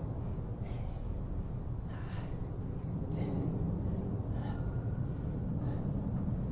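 A man breathing hard through a set of bodyweight squats, with a sharp gasp or exhale about every second and a quarter, five in all. He is near exhaustion deep into a 1000-rep push-up and squat ladder. A steady low rumble runs underneath.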